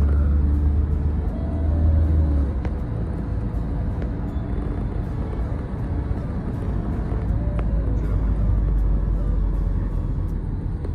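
Car driving, heard from inside the cabin: a steady low engine drone and road rumble.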